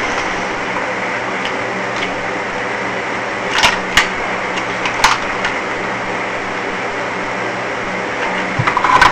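A steady machine hum with hiss, with a few light clicks or taps in the middle.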